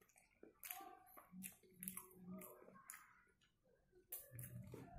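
Close-up chewing of a chicken cheeseburger: soft wet mouth smacks and clicks, a few a second, louder near the end.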